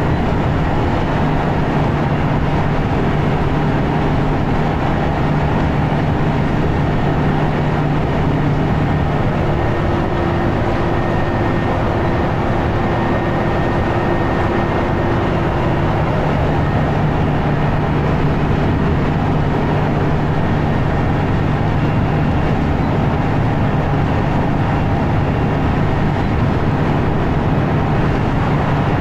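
Scania L94UB bus's five-cylinder diesel engine working hard at steady motorway speed, heard from inside the saloon together with road and tyre noise. A steady low hum runs under the noise, and a higher tone joins for several seconds in the middle.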